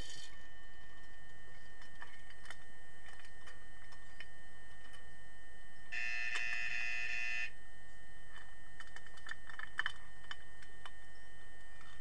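Underwater hockey play heard through the water: scattered sharp clicks and knocks, typical of sticks striking the puck and pool floor. About six seconds in, a pitched underwater buzzer sounds steadily for about a second and a half, the referees' signal that stops play.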